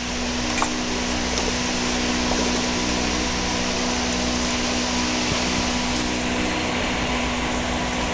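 Steady machine whir with a constant low hum and a few faint clicks.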